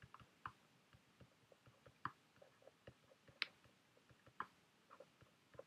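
Faint, irregular taps and clicks of a stylus on a tablet screen while writing by hand, a few of them a little louder than the rest.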